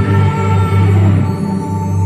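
Instrumental introduction of a pop song played from a backing track, before the vocal comes in: long held chords over a deep, steady bass note.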